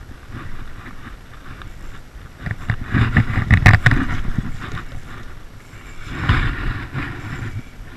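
Water splashing as a hooked carp thrashes at the edge of the bank, in two bursts: a louder one about three seconds in and a shorter one about six seconds in.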